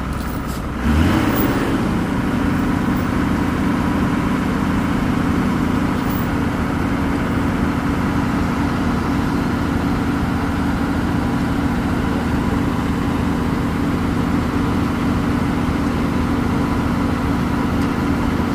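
Large diesel truck engine revs up about a second in, then holds at a steady raised speed.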